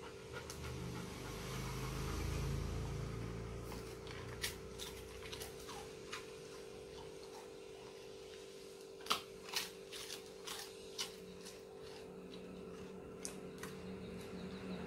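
German Shepherd eating food off a rug: a dozen or so soft, scattered clicks of chewing and licking over a steady low hum in a quiet room.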